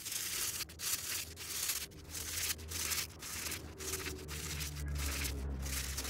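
Stiff plastic-bristle brush scrubbing wet, soapy nylon seatbelt webbing, a scratchy rubbing noise in quick back-and-forth strokes, about two or three a second. A low hum rises underneath in the second half.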